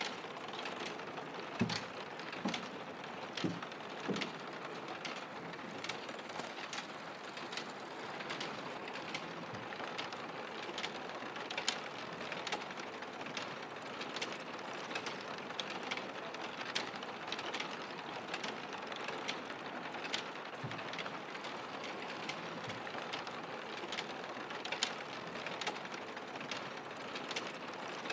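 Machinery in a roof-tile factory clattering steadily, a dense stream of irregular clicks and ticks, with a few louder knocks in the first few seconds.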